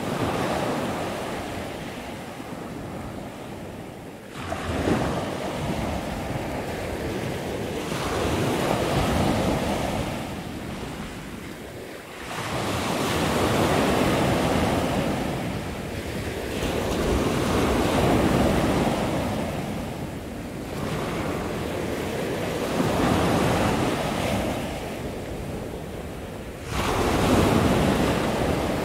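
Ocean surf breaking on a sandy beach: a steady rush of white water that swells with each breaking wave, about every four to five seconds, some waves arriving with a sudden crash.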